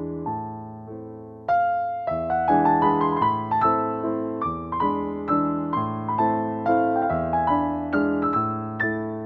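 Background piano music, soft at first, with fuller, louder notes coming in about a second and a half in.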